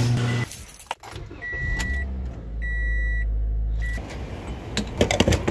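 Three high electronic beeps, a short one about a second and a half in, a longer one, then a brief one, over a low rumble. A quick run of sharp clicks follows near the end.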